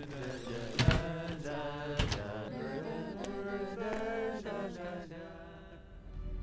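Background score music with sustained, chant-like pitched tones. Two sharp hits come about one and two seconds in, and the music grows quieter near the end.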